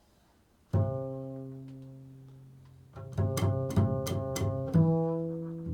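Improvised music on a plucked string instrument: a single low note is plucked about a second in and rings out slowly, then a quick run of about seven plucked notes follows near the three-second mark, ending on a low note left ringing.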